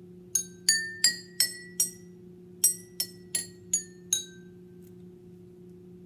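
Five drinking glasses holding different amounts of water struck one after another, ten clear ringing clinks: a run of five rising in pitch, then, after a short pause, five falling back down. The fullest glass gives the lowest note and the emptiest the highest.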